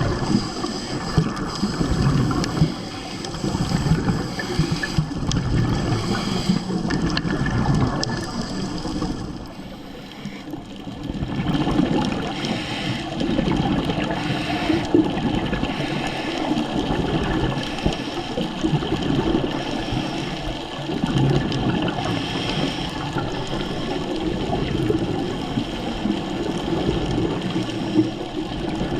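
Water bubbling and gurgling, heard underwater on a scuba dive, with a short lull about a third of the way in.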